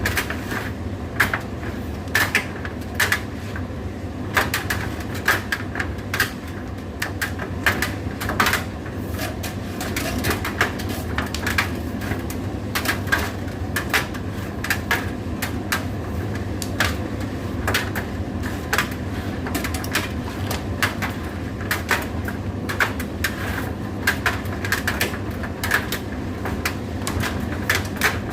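Indesit IDC8T3 condenser tumble dryer running: a steady motor and fan hum with many irregular clicks and knocks as the load tumbles in the turning drum.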